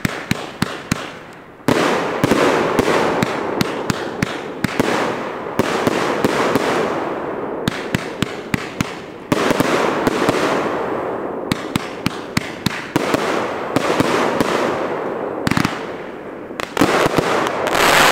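Megabanger 'Just Sick' 500-gram, 25-shot firework cake firing: sharp shots and bursts in quick succession over a continuous hiss, building to a dense, loud cluster near the end.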